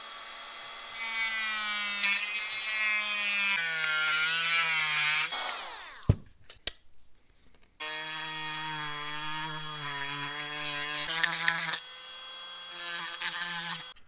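Cordless rotary tool with a cut-off wheel whining as it trims a notch out of a crawler's battery tray, louder and lower in pitch while it bites into the part. It winds down and stops about six seconds in, then starts again about two seconds later to grind the notch smooth, and stops just before the end.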